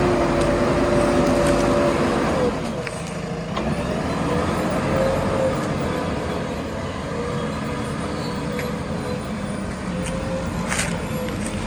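Backhoe loader's diesel engine working under load. Its note drops and quietens about two and a half seconds in, then rises and falls as the machine works, with a sharp knock near the end.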